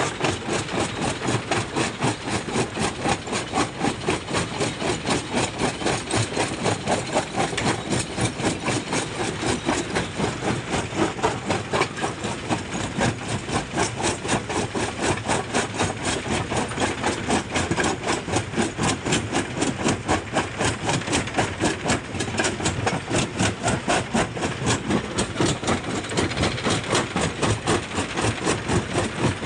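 Stone jaw crusher running under load: the swing jaw pounds in a fast, even rhythm of several strokes a second while rock cracks and grinds between the ribbed jaw plates.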